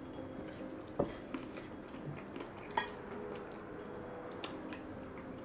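Cutlery and crockery clinking at a meal table: a few separate light clinks, the first about a second in, over a quiet room background.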